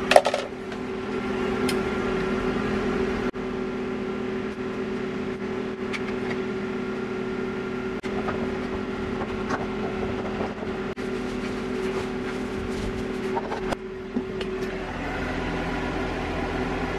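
A steady mechanical hum, with a few faint clicks of stainless screws being driven by hand into a plastic inspection port ring.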